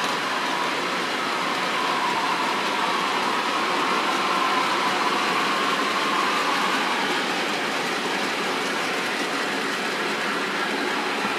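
A rake of OO gauge model bulk cement wagons rolling along model railway track, a steady running noise of wheels on rails, with a faint whine that dies away about seven seconds in.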